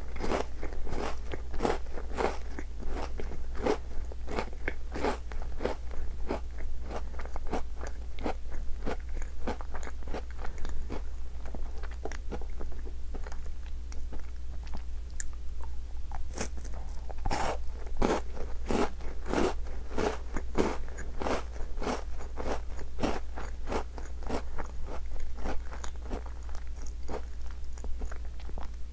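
Close-miked biting and chewing of chocolate-coated Tim Tam biscuits: a steady run of crisp crunches, about two a second.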